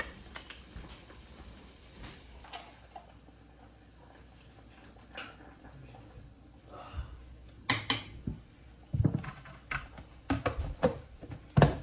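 Kitchen clatter: scattered clinks and knocks of pots, dishes and utensils being handled, the sharpest about eight seconds in and several more close together near the end.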